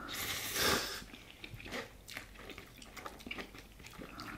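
Someone eating spicy instant noodles: chewing, with a louder noisy sound in the first second, then small wet mouth clicks.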